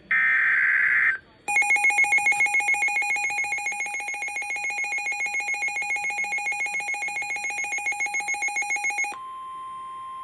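NOAA Weather Radio tornado-warning alert. It begins with the last of the three short, screechy SAME digital header bursts, and after a brief gap a loud, rapidly pulsing alarm tone sounds for about seven and a half seconds. Near the end that gives way to the steady 1050 Hz weather-radio warning tone.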